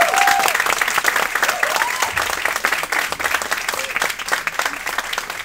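Small audience applauding, with a few cheers near the start; the clapping thins out and fades toward the end.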